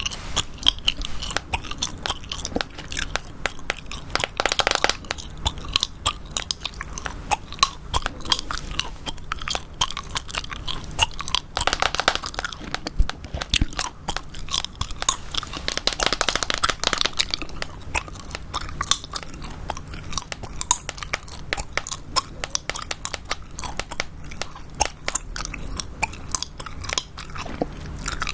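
Gum being chewed close to the microphone: a fast run of wet clicks and smacks, with a few louder clusters of smacking along the way.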